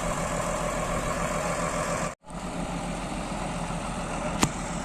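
BD50 bulldozer's diesel engine running steadily. About two seconds in, the sound cuts out to silence for a split second, and near the end there is one sharp click.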